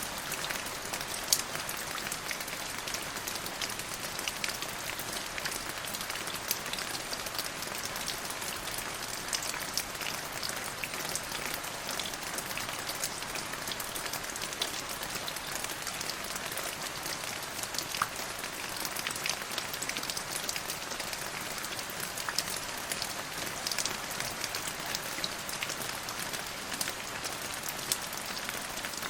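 Steady rain falling on a surface, a dense even hiss with many small drop ticks and a few louder individual drop hits scattered through it.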